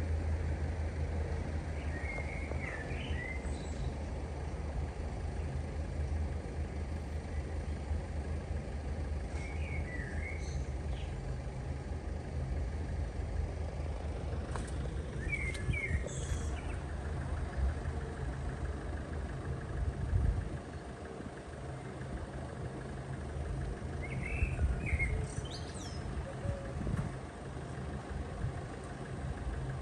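Car engines idling at a lowered level-crossing barrier, a steady low hum that drops off somewhat about two-thirds of the way through. A small bird chirps briefly four times over it.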